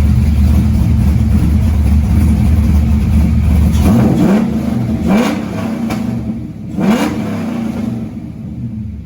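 Nissan 240SX engine running on a freshly installed fuel pump: a steady run for about four seconds, then three quick throttle blips, each a short rising rev.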